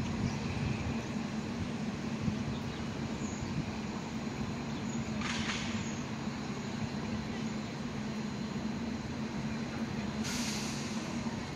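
Steady low hum of idling transit vehicles, with two short hisses of released air from air brakes, about five seconds and ten seconds in.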